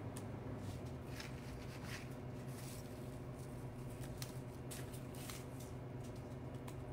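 Leafy greenery stems rustling and crackling in the hands as they are trimmed and stripped, in short irregular bits, over a steady low hum.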